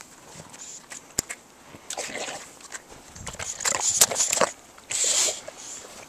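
A bulldog scuffling and crunching through deep snow close to the microphone, in several short noisy bursts, the loudest about four seconds in. A sharp click comes about a second in.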